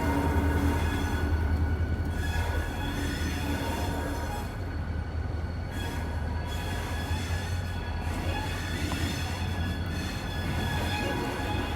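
Pan Am Railways diesel locomotive and train rolling by, with a steady low engine rumble and a high, steady squeal of wheels on the rails, easing off slightly after the first couple of seconds.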